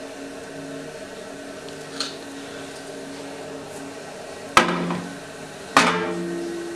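Two sharp knocks about a second apart, each with a short ringing tail, over a steady low hum, during kitchen work on dough.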